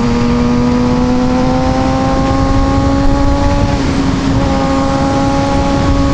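Kawasaki ZX-6R 636 inline-four engine running at high revs, its pitch rising slowly, with a brief dip in the tone about four seconds in, over heavy wind rush.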